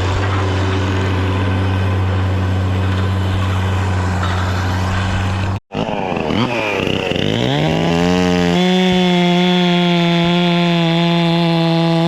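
A steady low engine drone, then, after an abrupt cut just before the middle, a chainsaw revving up in a smooth rising whine and holding at full throttle.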